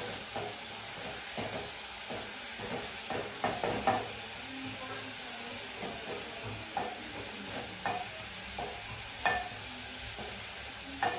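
Cabbage and onions frying in oil in a pan while a spoon stirs them: a steady sizzle with irregular knocks and scrapes of the spoon against the pan, several in quick succession about three to four seconds in and single ones after that.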